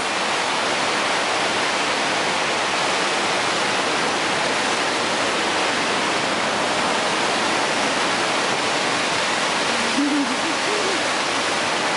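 Water pouring steadily over a fountain wall's ledge and splashing into the canal: a dense, even rush.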